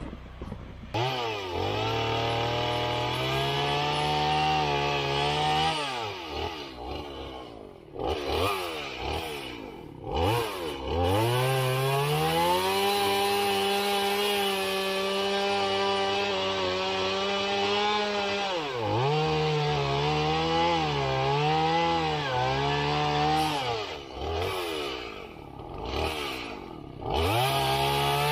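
Two-stroke chainsaw cutting wood. Its engine revs up, holds at high speed and drops back toward idle several times between cuts.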